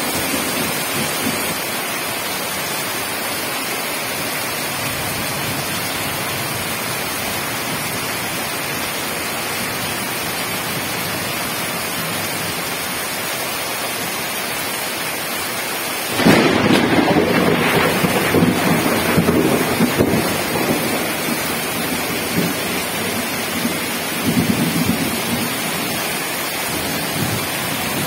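Heavy rain falling steadily. Just past halfway a sudden loud clap of thunder breaks in and rumbles for a few seconds. A weaker rumble of thunder follows near the end.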